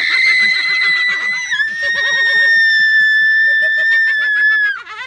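A girl's long, high-pitched scream held almost five seconds, dipping slightly in pitch about a second and a half in, with laughter from others underneath.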